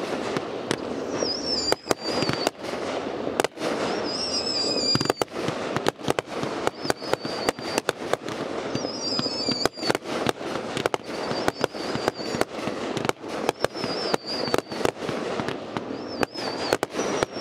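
A consumer fireworks cake of about 42 shots firing a rapid, irregular volley of launches and bursts with crackling, and a short wavering high whistle every second or two.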